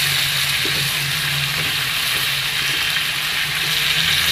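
Chicken pieces frying in hot oil in a kadai, a steady sizzle, as a spatula stirs them.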